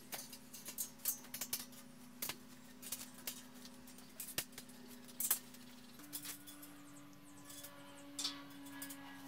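Small metal hardware clinking and clicking as brackets and fittings are worked by hand on aluminium T-slot extrusion, irregular sharp clicks coming thick in the first five seconds and once more near the end.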